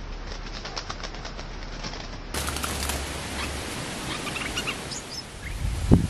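A wild bird fluttering and beating its wings at a hanging bird-trap cage, followed by a few short chirps and a dull thump near the end.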